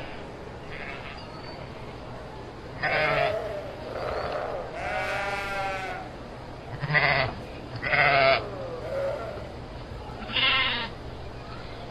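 Sheep bleating, about six calls in turn, with one longer wavering bleat around five seconds in and short loud calls near seven, eight and ten and a half seconds.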